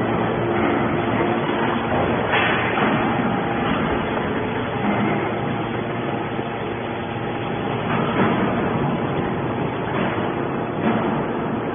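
Hydraulic can baler running as it presses aluminium drink cans: a steady dense machine noise with a few brief louder surges.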